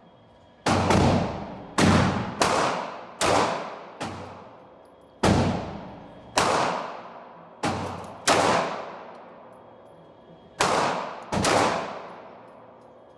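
Eleven single shots from a Glock 45 MOS 9mm pistol, fired at an uneven pace between about half a second and two seconds apart, with a longer pause about two-thirds of the way through. Each shot rings on in the echo of an indoor shooting range.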